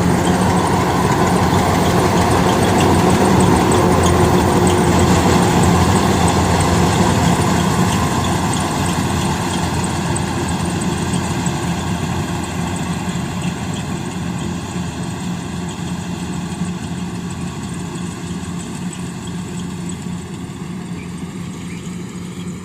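Large farm machine's engine running steadily with a low hum, growing gradually quieter from about eight seconds in.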